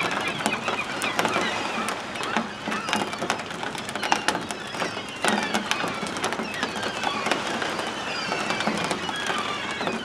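A large flock of gulls calling all at once, many short overlapping cries, as the birds are stirred up and take to the air at the arrival of food.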